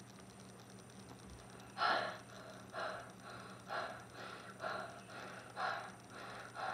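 A person breathing in and out into a tissue in place of a paper bag, the paper-bag breathing cure for hiccups. The breaths start about two seconds in and go in a steady rhythm, a louder and a softer breath about once a second.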